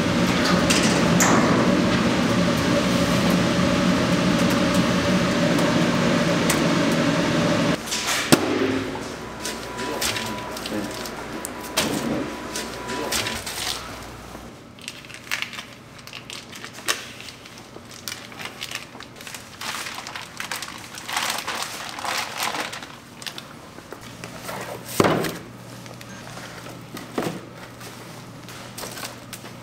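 A steady mechanical hum with a hiss, which cuts off about eight seconds in. After that come scattered knocks and clatter of vacuum-packed meat and plastic tubs being handled, with one sharper bang near the end.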